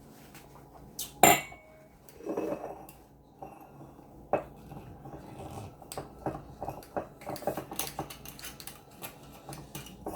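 Clinking and clattering of cutlery and dishes, with one sharp, ringing clink about a second in and a run of small clicks and taps in the second half.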